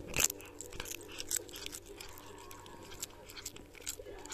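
A cat biting and chewing a sheet of dried nori seaweed close up: crisp crunches and crackles, thickest in the first second or so, then sparser bites.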